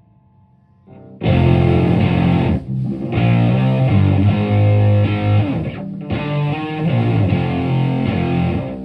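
Electric guitar through a Univox Super-Fuzz octave fuzz pedal into a Marshall Plexi amp and 4x12 cabinet, playing a heavily fuzzed riff. After a quiet first second with faint amp hum, the riff comes in loud, with two brief breaks.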